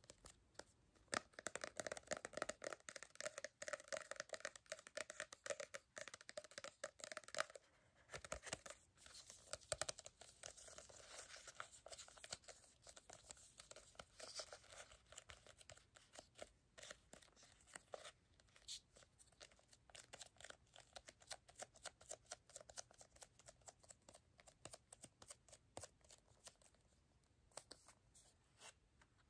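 Fingernails tapping and scratching on a small butterfly-print paper-covered item, making quick soft clicks and papery scratches. The tapping is densest for the first several seconds, then turns into more scattered taps.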